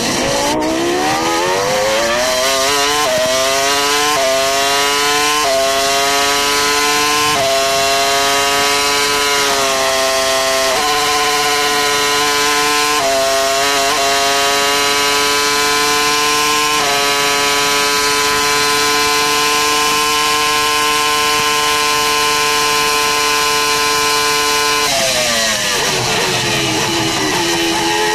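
The V10 engine of a 2002 McLaren-Mercedes Formula One car, heard from onboard. It accelerates hard up through the gears with a quick upshift every one to two seconds, then holds a steady high pitch at full throttle for about eight seconds. Near the end the pitch falls as the car brakes and downshifts.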